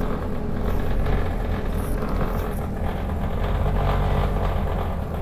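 Engine running steadily at a constant speed, with a noise in its running that the owner calls weird.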